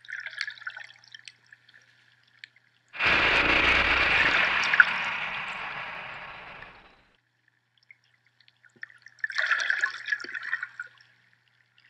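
Underwater bubbling and gurgling, then a loud rush of water about three seconds in that fades away over some four seconds, and more bubbling later on.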